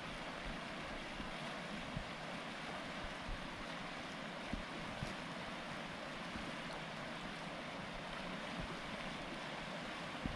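Steady rushing of river rapids, water running over rocks in a strong current.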